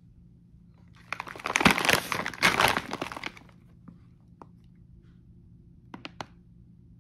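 Plastic pouch of frozen breakfast hash crinkling loudly as it is handled and turned over, from about a second in until past three seconds. A few small clicks follow near the end.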